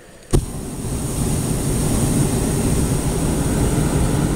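Hot-air balloon's propane burner firing: a sharp click about a third of a second in, then a loud, steady rushing blast that keeps going, heating the envelope so the balloon climbs.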